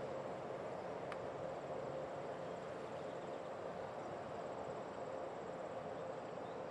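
Steady outdoor background noise with a faint, constant hum and faint insect chirping high up, likely crickets; a single brief click about a second in.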